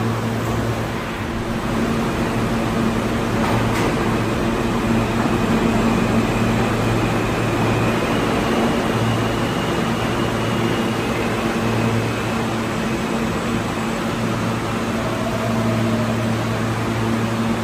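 Steady hum and rumble of a subway station platform, a low electrical hum over an even machine noise, with a faint high whine for several seconds in the middle.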